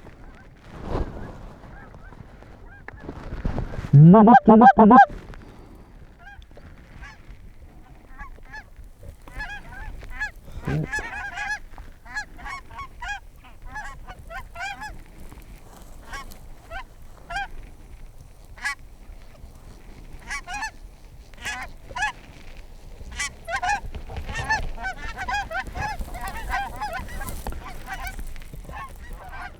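A hand-blown goose call, very loud and close, sounds for about a second, about four seconds in. A flock of geese keeps honking in many short calls, growing busier toward the end.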